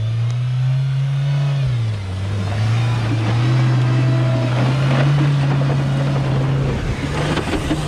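Stock Mahindra Thar's 2.0-litre turbo-petrol engine revving hard under load while climbing a steep sandy slope. The revs rise at first, drop about two seconds in, then climb again and stay high.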